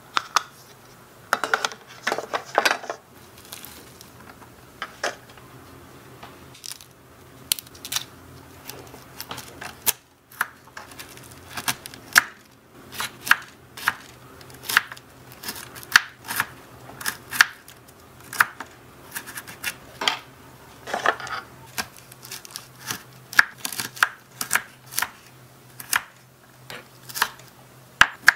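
Tiny kitchen knife chopping vegetables on a small wooden cutting board: sharp taps of the blade on the board, loosely spaced at first and settling to about one or two a second, with a faint steady hum underneath.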